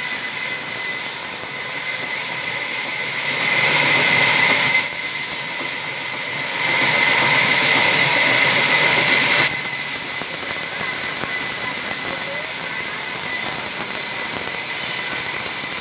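Large sawmill band saw running with a steady high whine, its blade cutting lengthwise through a wooden plank. The noise swells louder twice, for a second or so about four seconds in and for a few seconds from about seven seconds in, as the plank is pushed through the blade.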